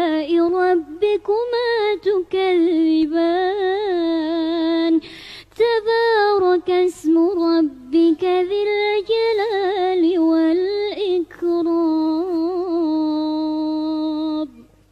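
A girl's voice reciting the Quran in melodic tajwid chant: long held notes, each sliding and ornamented, with short breaks for breath. It stops with a final held note just before the end.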